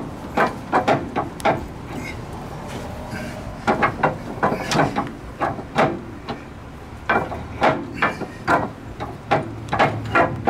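Irregular clicks and knocks of hands and metal tools working on the car's underside around the steering gear mount, coming in clusters.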